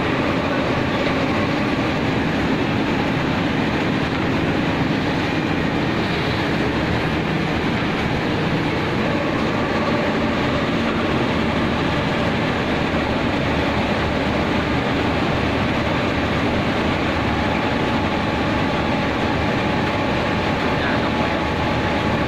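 Houfek Buldog 5 RC wide-belt sanding machine running: a steady, loud mechanical hum and rush with a few faint steady tones, unchanging throughout.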